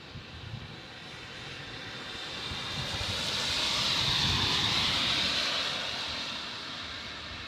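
A passing vehicle: a rushing noise that swells to a peak about four seconds in, then fades again.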